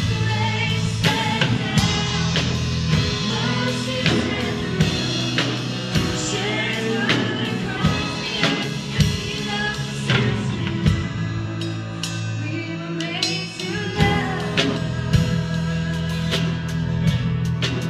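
A woman singing a worship song live, accompanied by strummed acoustic guitar with a steady rhythmic beat.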